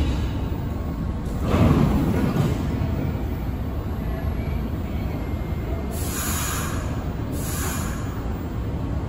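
New York City subway train in the station: a steady low rumble that swells louder about a second and a half in, then two short hisses about six and seven and a half seconds in.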